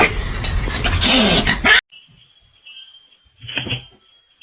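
A pet animal vocalising over loud noise that cuts off abruptly about two seconds in, followed by a quieter stretch with one short animal sound.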